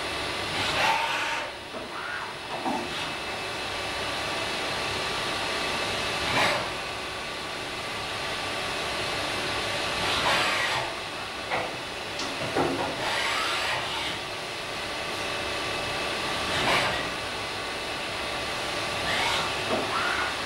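CNC rotary transfer machine cutting a brake master cylinder body: a steady whir and hiss of spindles and coolant, with a louder hissing surge every few seconds.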